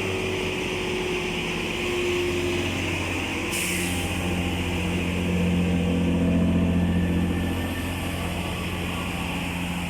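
Three coupled Class 165 diesel multiple units pulling out, their underfloor diesel engines giving a steady drone that swells around the middle. A short hiss sounds about three and a half seconds in.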